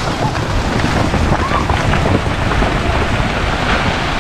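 Wind buffeting the microphone, a loud, steady rushing noise with a heavy low rumble, with faint voices in it.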